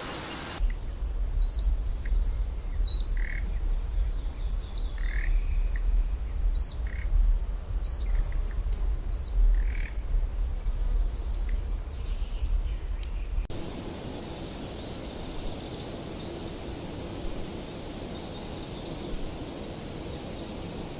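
Outdoor nature ambience with a short high chirp repeating about every second and a half, with a few lower calls in between, over a low rumble. Around 13 seconds in it changes abruptly to a softer, even background hush.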